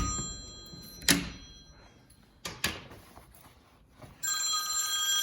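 A phone ringing: a steady high ringing tone comes in about four seconds in and keeps on. Before it come a few sharp knocks or thuds.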